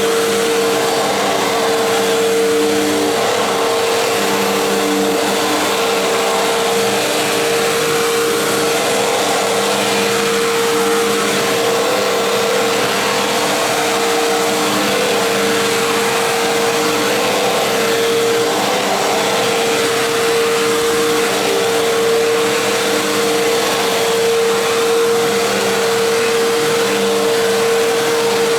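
Fantom Fury bagless dual-cyclonic upright vacuum cleaner running steadily while vacuuming carpet: a constant motor whine at one fixed pitch over an even rush of air.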